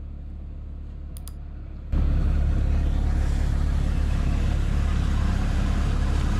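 Sherp amphibious all-terrain vehicle's diesel engine running steadily, close and loud. It cuts in suddenly about two seconds in, after a quiet low rumble with two faint clicks.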